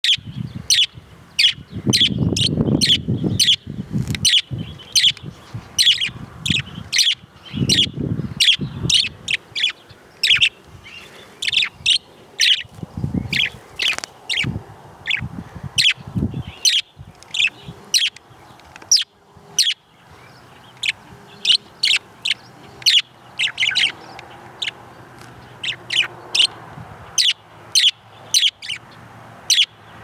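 Budgerigars chirping outdoors: a steady run of short, sharp, high chirps, about two a second.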